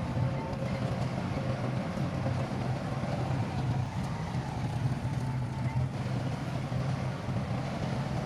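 Heavy diesel earthmoving machinery running steadily: a constant low engine drone with a faint steady whine above it.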